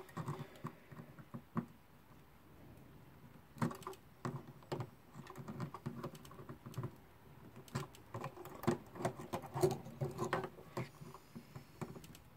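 Irregular light metallic clicks and taps of steel pliers working on a Haller alarm clock's brass movement, as the leaves of a wheel's tension spring are pressed and bent. The clicks come in two busier bursts, a few seconds in and again past the middle.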